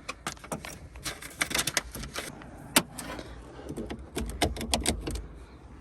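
Irregular plastic and metal clicks and clacks from handling a portable jump starter and its cables, with one sharp click a little before halfway.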